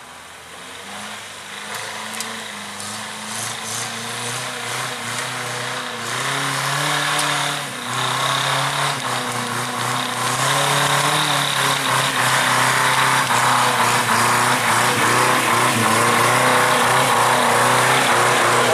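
Off-road 4x4 vehicle's engine revving up and down, growing steadily louder as it comes closer.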